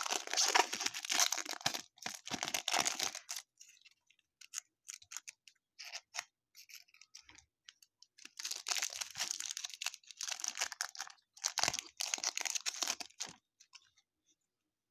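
Baseball card pack wrappers tearing and crinkling in three spells of a couple of seconds each, with light clicks and flicks of cards being handled in between.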